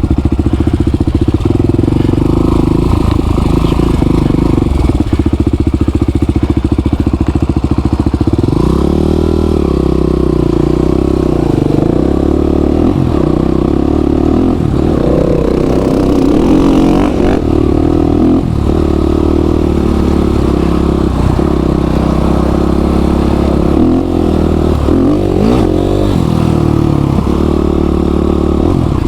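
Trail motorcycle engine running steadily at first, then from about eight seconds in the revs rise and fall repeatedly as the bike is ridden.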